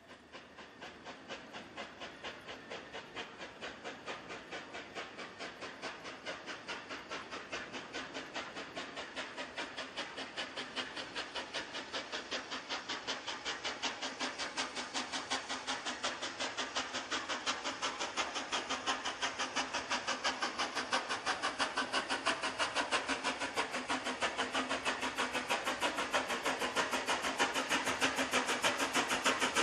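Narrow-gauge single Fairlie steam locomotive Taliesin working a train, its exhaust chuffing in rapid, even beats that grow steadily louder as it approaches.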